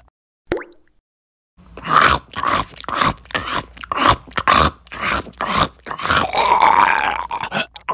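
Chewing and crunching sounds of a mushroom being bitten and eaten, mixed with groaning, starting about a second and a half in after a near-silent moment.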